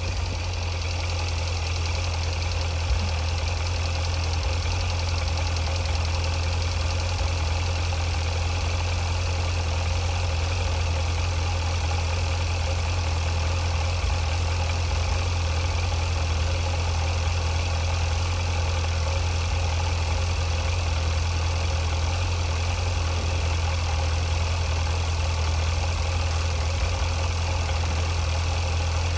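Suzuki GSX1250FA motorcycle's inline-four engine idling steadily, running on fresh oil and a new oil filter just after an oil change.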